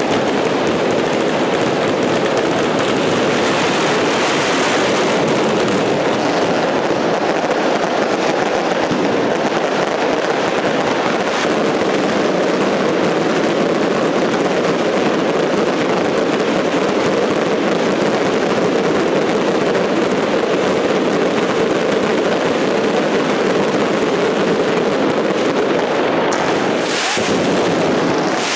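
Fireworks crackling in a dense, unbroken barrage, so many small crackers going off together that no single bang stands out.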